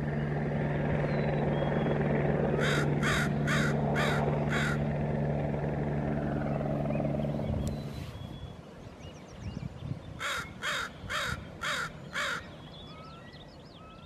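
Northwestern crow cawing in two runs of five quick caws, about two to three a second, with a pause of several seconds between the runs. A steady low drone underlies the first half and fades out about eight seconds in.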